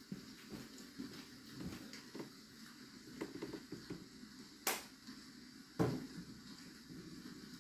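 Steady rain-sound background with scattered light taps and clicks of desk work, and two sharper clicks a little over a second apart near the middle.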